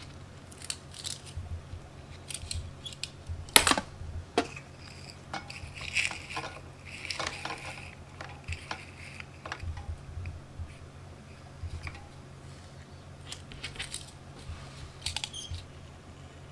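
Scattered small clicks, taps and clinks of a soldering iron and small connectors being handled on a tin tray, the sharpest click about three and a half seconds in.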